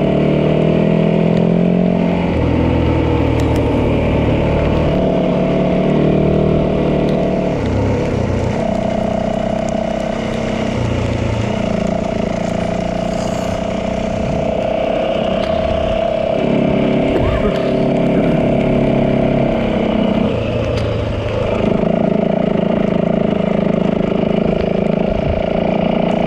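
Yamaha 450 dirt bike's single-cylinder four-stroke engine running under way, its pitch holding steady for a few seconds at a time and then stepping up or down as the throttle and gears change.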